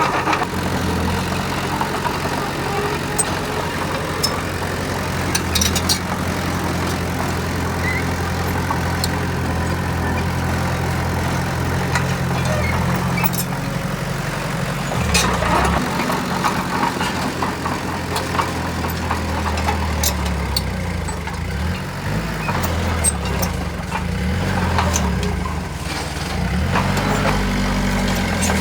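Heavy diesel engine running, steady at first, then its pitch shifts and wavers up and down from about halfway as the throttle changes, with scattered clicks and knocks.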